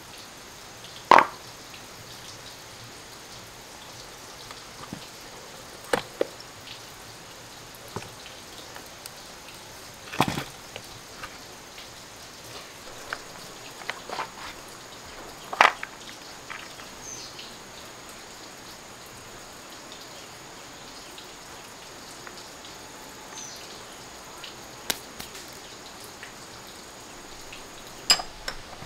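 Scattered sharp clicks and knocks, about five loud ones several seconds apart with fainter ticks between, over a steady hiss: tools and metal parts being handled and set down during work on a chainsaw.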